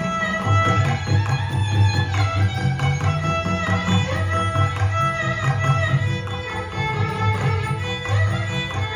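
Carnatic violin playing a melodic line full of sliding ornaments, with mridangam strokes and kanjira accompaniment beating steadily underneath.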